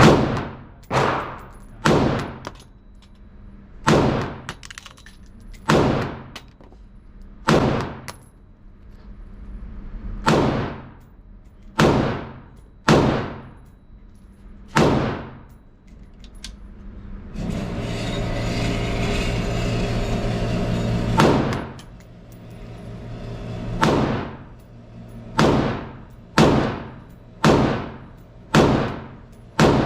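Colt AR-15-pattern rifle firing single semi-automatic shots, about twenty in all, each with a ringing echo. The shots come one to two seconds apart and quicken to about one a second near the end. A steady rushing noise with a low hum fills a few seconds past the middle.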